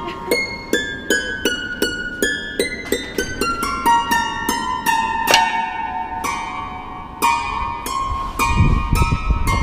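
Improvised solo piano music: a quick run of single high notes, each struck and left to ring. Near the end a low rumble rises beneath the notes.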